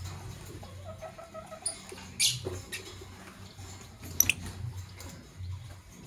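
Caged Fischer's lovebirds giving a few short, shrill chirps, the loudest about two seconds in and another just after four seconds, over a low steady hum.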